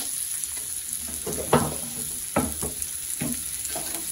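Sliced red onions sizzling in hot vegetable oil in a stainless steel wok: a steady hiss with a few short knocks, the loudest about one and a half seconds in.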